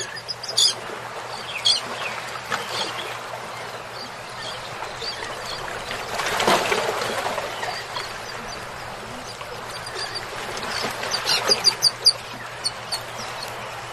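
Birds chirping over a steady hiss, with a quick run of short, sharp calls near the end.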